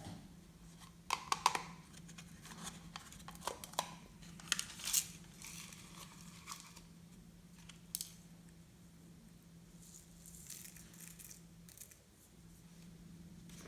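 Glossy slime being worked and stretched by hand, giving sticky clicks, pops and crackles: a cluster in the first five seconds and one more about eight seconds in, then quieter, with a faint steady hum underneath.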